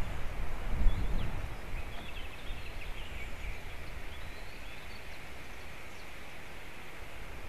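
Wind buffeting the outdoor microphone with a low rumble for the first second or so, then a steady outdoor hiss. Faint, short bird chirps sound high up through the middle.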